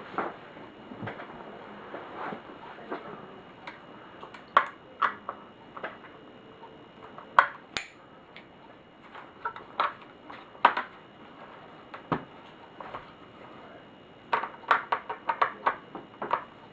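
Irregular clicks, taps and light clinks of small plastic and metal laptop parts and screws being handled and worked apart, with a quick run of clicks near the end.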